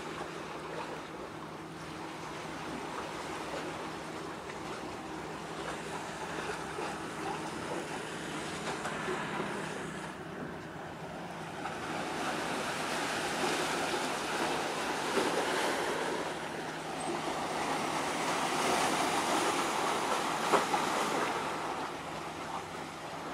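Rushing outdoor noise of wind on the microphone and water washing against the harbour breakwater, swelling louder in the second half. Under it runs a faint steady low hum of ship engines.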